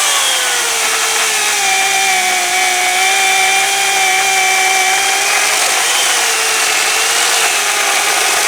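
Makita UC3551A corded electric chainsaw running under load as it cuts into a log: a steady motor whine with chain noise. Its pitch sags as the chain bites in at the start and lifts briefly twice later on.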